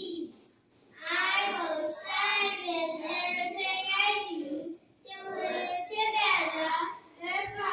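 A group of young children singing together in short phrases, with brief pauses between lines.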